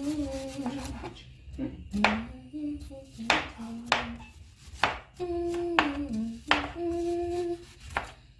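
A kitchen knife cutting down onto a wooden chopping board: about ten sharp knocks at an uneven pace, roughly one a second. A person hums a tune over the cutting.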